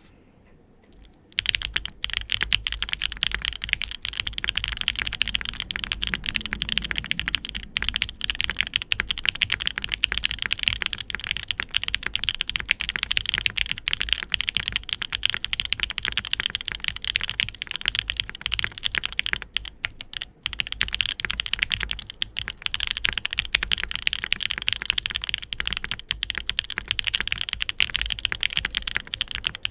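Fast continuous typing on a mechanical keyboard fitted with stock, factory-lubed Gateron Mountain Top linear switches in a foam-dampened board with an aluminium flex-cut plate. It gives a dense run of deep, clacky keystrokes that starts about a second and a half in, with a short break around two-thirds of the way through.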